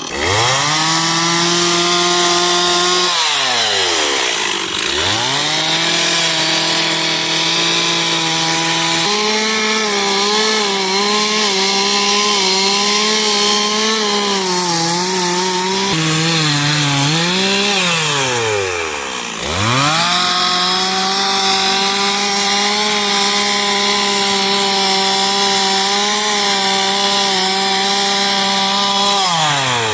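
Two-stroke chainsaw held at full throttle and cutting into a wooden log, its pitch wavering as the chain bites into the wood. The throttle is let off to idle briefly about three seconds in and again around eighteen seconds, then revved back up, and it drops off once more at the end.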